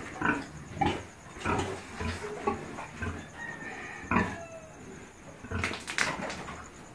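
Farm animals calling in a pig barn, amid scattered sharp knocks and rustling.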